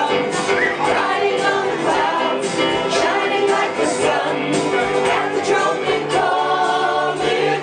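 Music: a song with singing voices over instruments.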